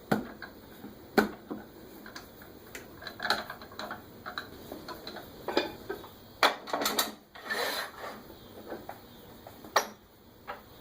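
Scattered knocks, clicks and clanks of a wood lathe's tool rest and tools being handled and set in place, with a brief scrape about seven and a half seconds in; the lathe is not running.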